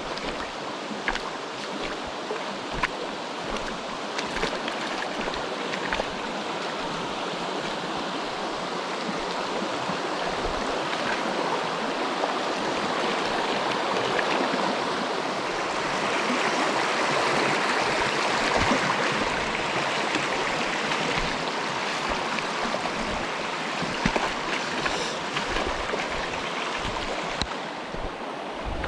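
Mountain stream rushing over rocks, swelling louder about halfway through and easing again toward the end, with scattered light ticks and taps.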